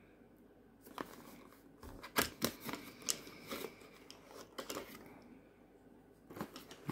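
A cardboard box of 12-gauge buckshot shells being opened by hand and a plastic-hulled shell drawn out, with scattered light clicks, taps and rustles of cardboard and shells.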